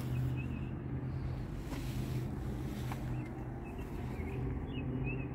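Outdoor ambience: a steady low hum, with small birds chirping briefly now and then.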